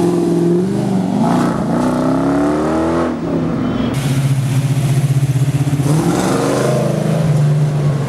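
A Dodge Challenger R/T's V8 revving and accelerating, its pitch climbing in several rising sweeps. After a cut, a classic Ford Mustang fastback's V8 runs at low speed with a pulsing beat, rising briefly about six seconds in.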